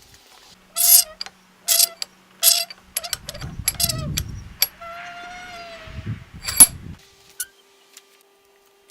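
Metal-on-metal clanks, each ringing briefly at a clear pitch: three sharp strikes in the first few seconds, a longer ringing tone in the middle, and one last loud clank before it goes quiet.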